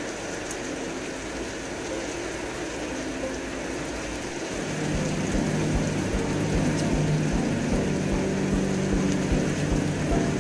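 Steady rain, an even hiss of falling drops. Low sustained tones run under it and grow louder about four and a half seconds in.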